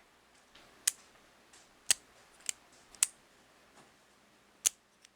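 Sharp, irregular clicks of a fidget pen's magnetic metal spinner ring being worked along the pen's shaft, about five in all.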